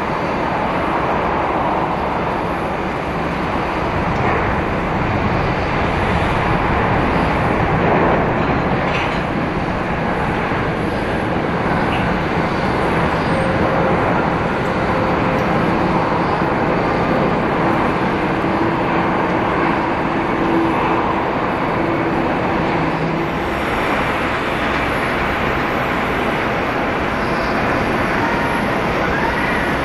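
Steady jet airliner engine noise at taxi power, an even rumble and hiss with no distinct events.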